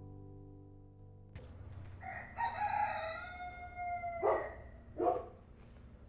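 Background music cuts off about a second in. A long crowing call follows, falling slightly in pitch, and then two short calls.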